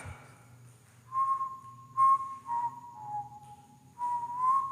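A person whistling a slow tune in a series of held notes that dip and rise again, starting about a second in.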